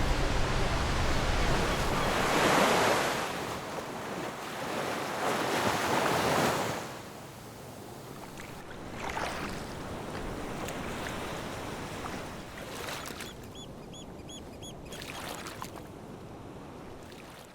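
Ocean surf: two waves break and surge in the first seven seconds, then a quieter wash of water. Near the end come four short, high, repeated chirps.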